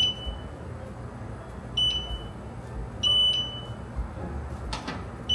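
Fingerprint-lock safe's electronic beeper giving short high beeps, one right at the start, one about two seconds in, a longer one a second later and another at the end: the safe's prompts while a fingerprint is being registered.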